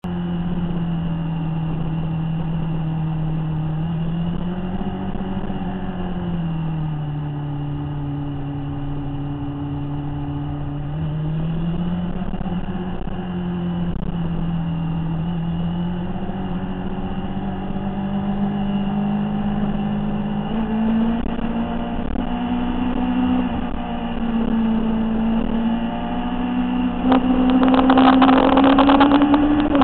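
Motorcycle engine running at road speed, heard from the bike itself, its pitch dipping and rising with the throttle through the curves and climbing steadily toward the end. Near the end a louder rough rushing noise joins in.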